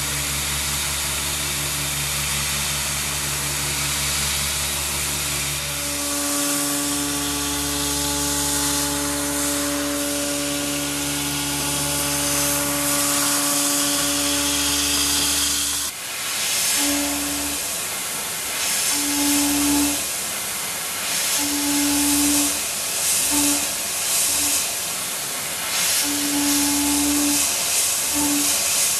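Milling machine cutting metal with a Walter-Prototyp Tough Guys high-feed milling cutter: a steady hiss of machining over a low hum, with a held cutting tone that, past the middle, comes and goes in short spells.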